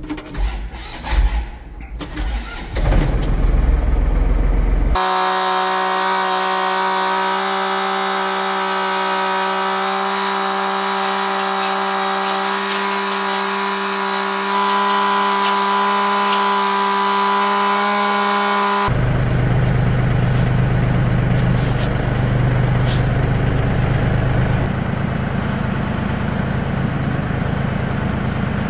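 Kukje (International) EF475 tractor's diesel engine starting with a few knocks and catching about three seconds in, then running steadily. Between about five and nineteen seconds the low engine note drops out and a steady hum with evenly spaced overtones takes its place.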